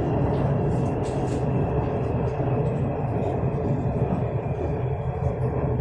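Electric metro train running between stations, heard from inside the carriage: a steady noise of wheels on rails and running gear.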